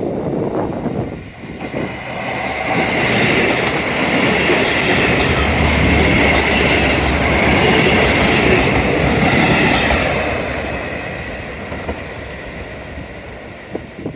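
KiHa 185 series diesel limited express train passing: engine and wheels on the rails swell to a loud peak and then fade away.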